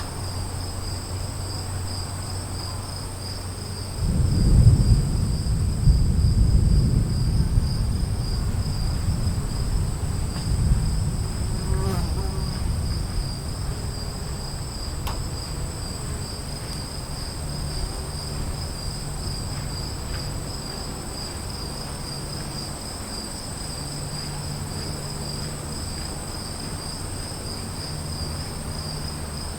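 A roll of thunder breaks in suddenly about four seconds in and rumbles low, slowly fading over the next several seconds. Under it, insects chirr steadily and high-pitched throughout an afternoon thunderstorm ambience.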